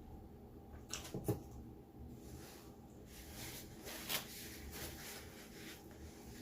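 Close-miked chewing and mouth sounds of someone eating, with two sharp smacking clicks about a second in, followed by a few seconds of soft, crackly chewing.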